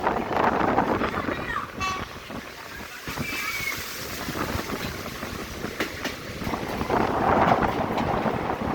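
Passenger train running, heard from on board: a steady noisy rumble of the carriage and wheels with wind on the microphone. It drops quieter for a few seconds in the middle and swells again near the end.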